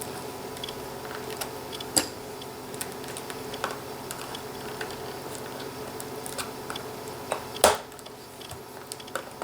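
Small plastic clicks and ticks as a laptop keyboard is pried loose with flathead screwdrivers, its retaining tabs snapping free: a sharp snap about two seconds in and a louder one near the end, over a steady low hum.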